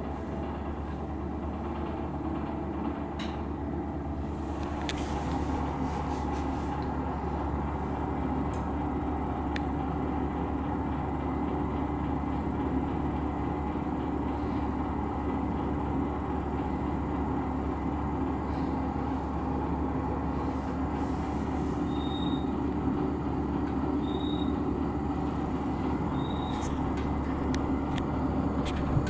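Corona KCF-G4617BY heater running with a steady hum that grows a little louder about five seconds in, with scattered light clicks: the abnormal 'koron koron' noise the owner is recording. Short high beeps repeat about every two seconds in the second half.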